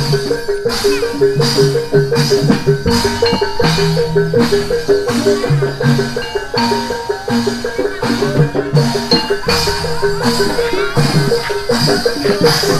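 Live gamelan accompaniment for a barongan dance: a fast, repeating pattern of metal mallet-struck notes over drum strokes, with sharp hits on a steady beat.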